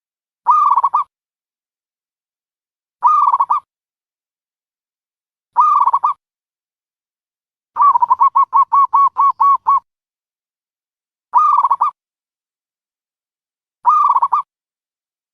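Dove cooing: a short call phrase repeated about every two and a half seconds, with one longer rapid run of about ten quick coos about eight seconds in.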